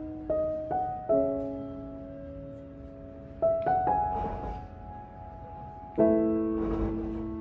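Slow, soft piano music: a few notes or chords struck at a time and left to ring out.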